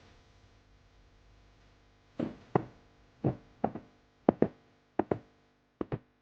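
Boots striking hard ground in marching steps: about a dozen sharp footfalls, mostly in close pairs, starting about two seconds in.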